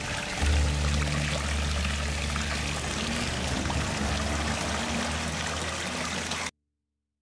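Water pouring from a spout into a stone basin, splashing steadily, under background music with low held notes. Everything cuts off suddenly near the end.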